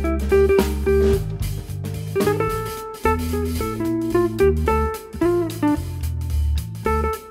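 Background music: a plucked guitar melody over a bass line, with a light drum beat.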